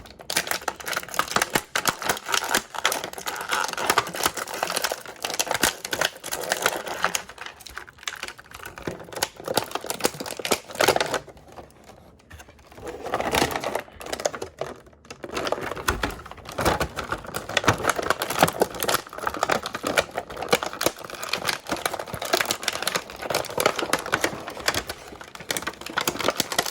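Plastic blister tray and cardboard action-figure packaging being handled and pried apart by hand: a dense run of small plastic clicks, crackles and rustles, with two short lulls.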